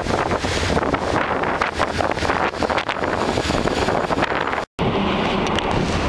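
Strong storm wind buffeting the microphone, with the rush of heavy seas beneath it. The sound cuts out for an instant about three-quarters of the way through, then carries on.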